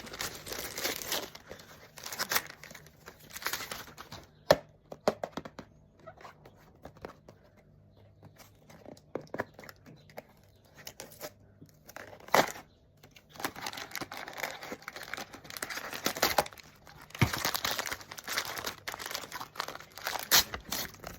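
Toy packaging being unwrapped by hand: wrapping crinkling and tearing in bursts, with sharp clicks and snaps. There is a quieter spell with only scattered clicks in the middle.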